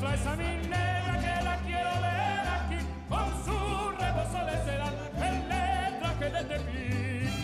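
Background music: a singer holding wavering, vibrato-laden notes over a steady bass line.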